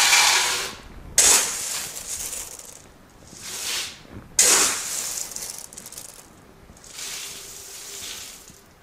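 Sunflower seeds scooped by the cupful from a plastic tub and poured into a plastic pitcher, giving a dry rattling hiss in about five separate pours.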